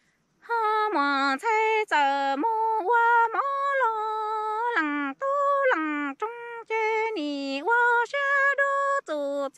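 A woman singing Hmong kwv txhiaj (sung poetry), unaccompanied. She sings long held, wavering notes in short phrases, each gliding down in pitch at its end. The singing starts about half a second in.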